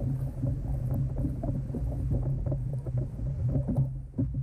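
A yellowtail being hauled aboard a plastic kayak and thrashing against the hull, giving many dull knocks and thumps in quick succession over a low rumble.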